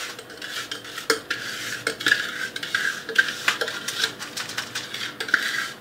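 A utensil scraping and tapping against a bowl as buttered cookie crumbs are emptied out, with many small irregular clicks and knocks.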